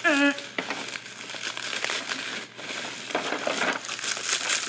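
Bubble wrap being handled and crumpled by hand, crinkling with many small crackles.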